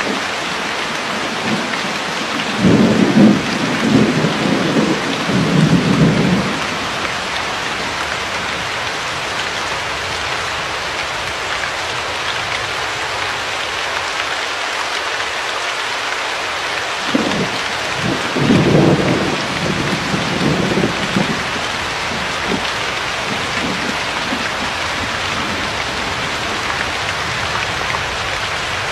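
Steady heavy rain hissing throughout, with two rolls of thunder rumbling low, one about three seconds in that lasts a few seconds and another about seventeen seconds in.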